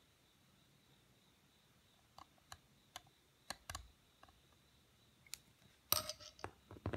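Seal-carving knife cutting into a stone seal: single sharp clicks, spaced out, starting about two seconds in, then a louder quick cluster of clicks and knocks near the end.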